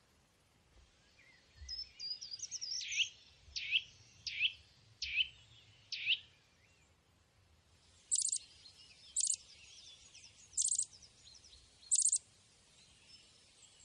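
Wild birds calling: a quick twittering run of high notes, then five sharp downward-slurred whistles about one a second, followed by short high noisy notes every second or so with faint twittering between.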